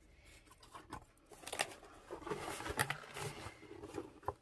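Sheets of paper rustling and a cardboard box being handled, with a few sharp taps and clicks scattered through it.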